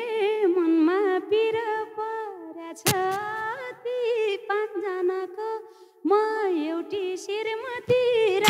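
A woman singing solo and unaccompanied in Nepali dohori folk style: one long, ornamented melodic line, broken by short pauses about three seconds in and again near six seconds.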